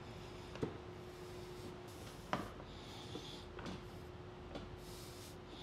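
Faint handling sounds of tools and metal parts during a hub motor teardown: a few light clicks and taps, the loudest about two seconds in, with some soft rubbing, over a faint steady hum.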